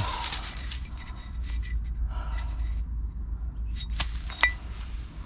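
Dry grass and twigs rustling as a hand handles a fragment of old tomb brick, with two sharp clicks about four seconds in.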